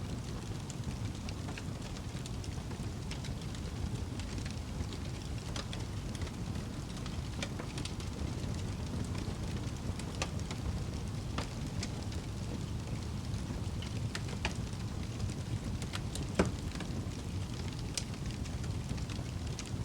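Wood fire crackling in a fireplace: a steady low rumble with scattered sharp crackles and pops, one louder pop about sixteen seconds in.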